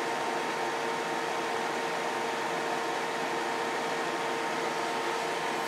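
Steady background whir and hiss, with a constant hum tone underneath and no change throughout.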